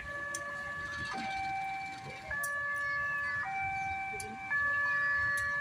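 Two-tone electronic siren of a railway level-crossing early-warning system, played through a small horn loudspeaker. It alternates steadily between a high and a low tone, each held about a second, and gets louder near the end.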